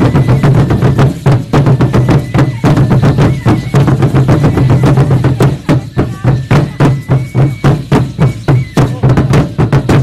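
Loud, fast drumming that accompanies Aztec (Mexica) danza, about four beats a second, over a steady low ringing from the drum.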